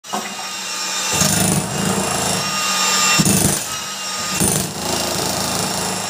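A power tool running steadily, with louder bursts about a second in, at about three seconds and again at about four and a half seconds.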